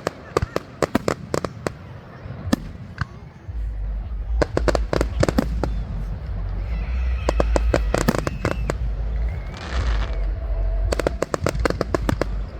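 Fireworks display: a rapid run of crackling pops and bangs, joined by a deep rumble of bursts from about three and a half seconds in.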